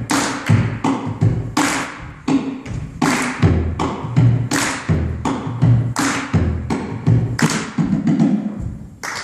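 Bodhrán drumming in a steady rhythm of low thumps, with hand claps landing about twice a second.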